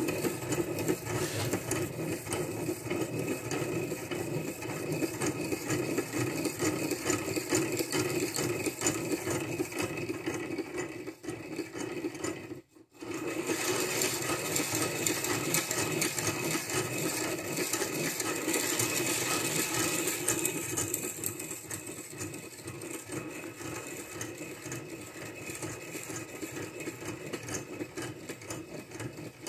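The end of an engine exhaust valve stem being ground against the stone of a piston ring filer: a steady grinding rasp that stops briefly about halfway through and is softer in the last part. Material is being taken off the stem to open up the clearance between valve and lifter.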